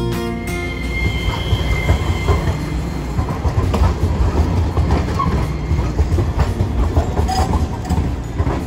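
Hiroshima Electric Railway 5100-series Green Mover Max low-floor tram pulling away and rolling past. It gives a steady low rumble, with its wheels clattering over the rail joints and points, and a faint wheel squeal about a second in.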